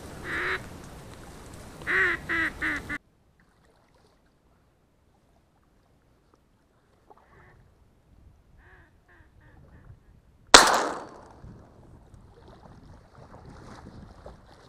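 Ducks quacking in a short run of calls, then the sound cuts out abruptly for a few seconds before faint quacks return. About ten seconds in comes a single loud shotgun shot at a duck on the water, fading over about a second.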